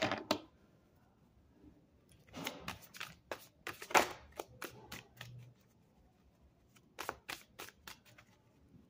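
A deck of tarot cards being shuffled overhand by hand, the cards clicking and slapping against each other in two spells: the first starting about two seconds in, the second near the end.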